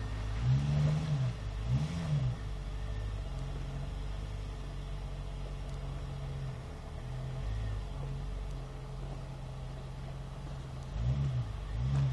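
Toyota FJ's engine at low speed, given a few short blips of throttle that rise and fall in pitch, then running steadily at low revs, with more throttle blips near the end.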